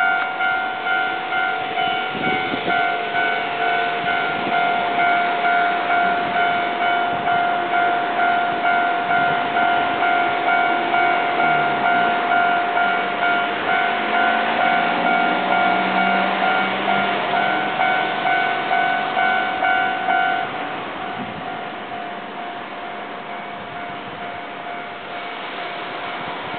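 Japanese level-crossing alarm ringing its electronic bell tone about twice a second while an Enshu Railway electric train rumbles through; the alarm stops about 20 seconds in, leaving a quieter steady sound.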